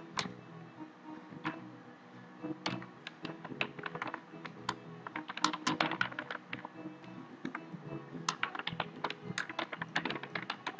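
Computer keyboard being typed on: quick runs of key clicks with short pauses between words, the busiest stretches about halfway through and again near the end.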